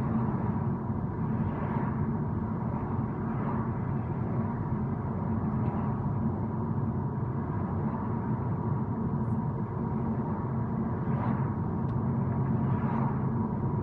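A car driving along a city street, heard from inside the cabin: steady low road and engine rumble, with a few passing vehicles swelling by briefly near the start and near the end.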